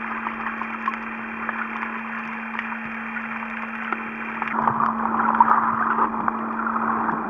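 Underwater camcorder audio: a steady electrical hum under a crackling hiss of sea noise. About four and a half seconds in, the hiss turns louder and rougher.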